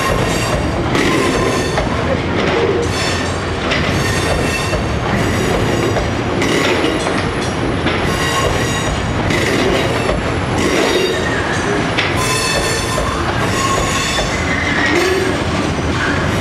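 Freightliner coal hopper wagons rolling past on curved track, with a steady rumble and a regular clack over the rail joints about once a second. High wheel squeals come and go, and one rises in pitch near the end.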